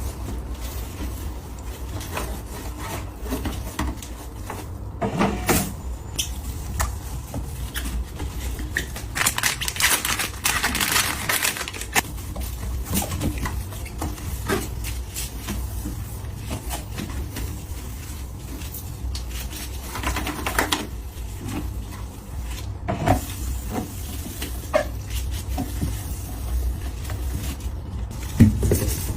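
Household items being handled: scattered small clicks and knocks, with longer stretches of rustling about nine to twelve seconds in and again around twenty seconds.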